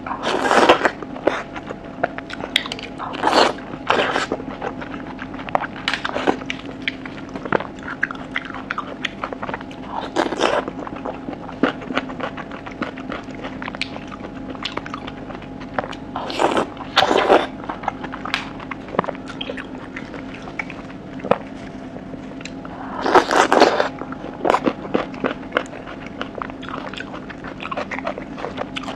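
Close-miked eating of cooked oysters pulled off bamboo skewers: wet bites and chewing that come in short spells every few seconds. A steady low hum runs underneath.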